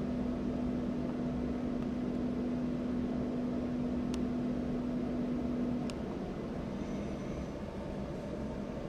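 Steady low mechanical hum with a held low tone that cuts off about six seconds in, and two faint clicks.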